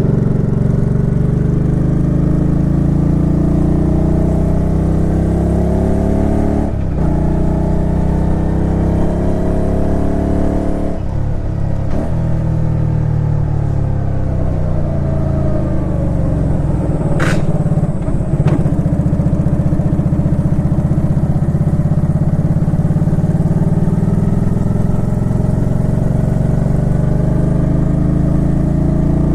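Suzuki Intruder Classic 400 V-twin engine running on the road, its pitch rising and falling as the bike accelerates and shifts gears, with short dips about 7 and 11 seconds in. A sharp click with a brief high tone sounds a little past halfway.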